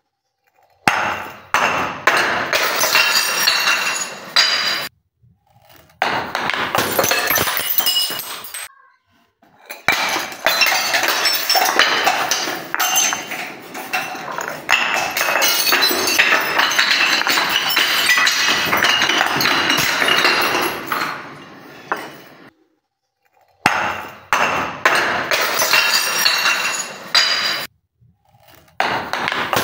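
Glass bottles packed with water beads tumbling down stone stairs, clattering and clinking against the steps and against other bottles, with glass breaking and loose beads scattering down the steps. It comes in several bursts with brief silences between them.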